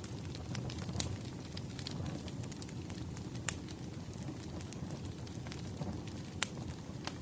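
Wood fire crackling: a steady low rumble with scattered sharp pops, a few of them louder.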